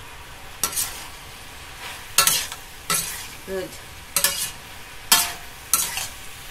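Vegetables stir-frying in a stainless steel pan: a metal spatula stirs and scrapes the pan in about six short strokes over a steady sizzle.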